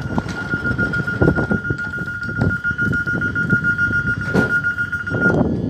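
A steady, high, slightly pulsing electronic tone from the open doorway of a standing Omnéo (Regio 2N) electric train, cutting off about five seconds in. Underneath are low rumbling noise and a few short knocks.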